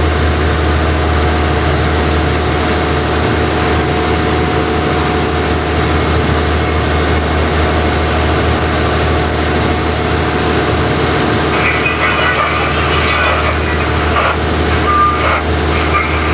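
Fishing boat's engine running steadily with a low drone. Voices come in over it from about two-thirds of the way through.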